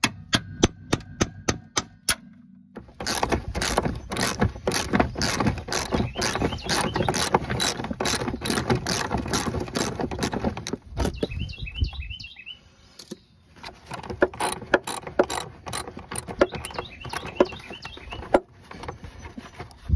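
Hand ratchet clicking as a stubborn lower rear shock absorber bolt is worked out, in quick runs of clicks with a pause about halfway through.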